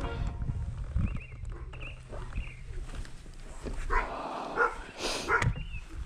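An animal calling several times in short calls with bending pitch, the loudest about four to five seconds in.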